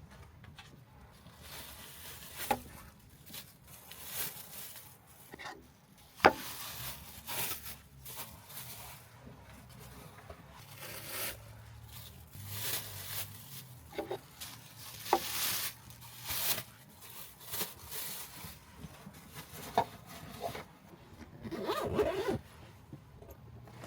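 Irregular rustling, rubbing and scraping of things being handled, some strokes like a zipper, with a few sharp clicks; the loudest click comes about six seconds in.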